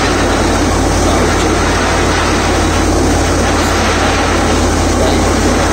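Borewell drilling rig running loud and steady while air blows water up out of the bore, which gushes out from under a sack laid over the wellhead; the flow shows that the bore has struck water.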